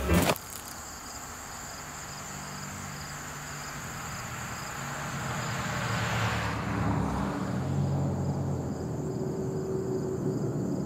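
Jazz music breaks off right at the start, leaving steady high-pitched insect chirring. Traffic noise swells as a vehicle passes on a nearby road, loudest about six to seven seconds in, then eases off.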